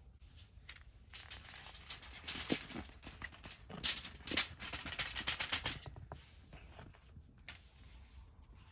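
Pieces of oiled, seasoned squash and bell pepper sliding off a paper plate and pattering onto aluminium foil in a rattly clatter, loudest with two sharp spills about four seconds in.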